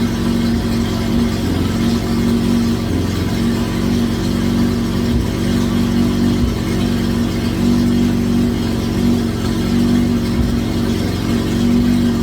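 K-series four-cylinder engine in a K-swapped Honda Civic EG running steadily, now that it starts on the replacement engine harness.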